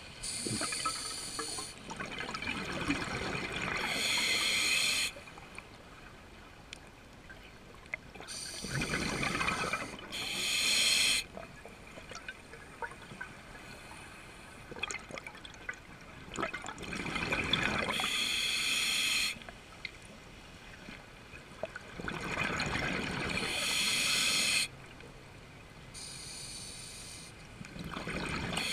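Scuba diver breathing through a regulator underwater: about five slow breaths, each a rush of exhaled bubbles and a short, high hiss from the regulator, with quieter gaps between.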